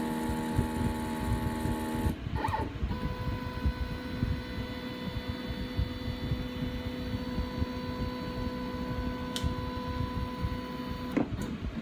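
X-Carve CNC's stepper motors whining as the machine runs its homing cycle, driving the axes toward their limit switches. One steady whine changes to another after a short break about two seconds in, and the motors stop with a click near the end.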